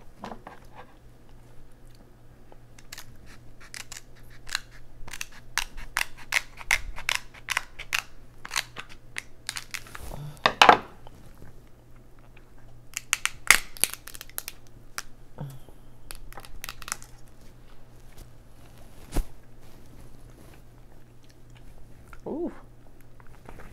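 Cooked king crab leg shell being cracked and snapped apart by hand: a run of sharp crackles and cracks, the loudest two about ten and thirteen seconds in, and a last single crack a few seconds later.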